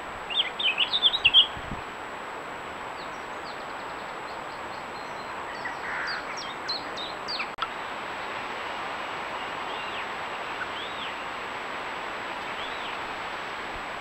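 Small songbirds singing outdoors: a quick burst of high chirping notes in the first two seconds and more scattered chirps around six to seven seconds. After a sharp click, a few faint, separate arched whistle notes sound over a steady hiss.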